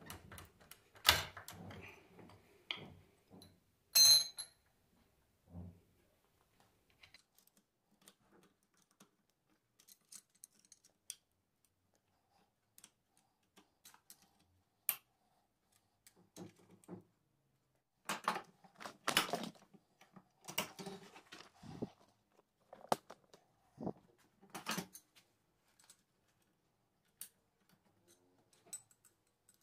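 Intermittent metallic clinks and clatter of a homemade bearing puller and hand tools being worked to pull a worn bearing off an alternator, with a sharp ringing metal strike about four seconds in.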